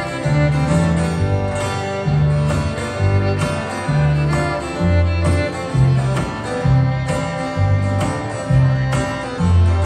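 Live acoustic string band playing an instrumental passage: fiddle over strummed acoustic guitar, with upright bass notes about twice a second.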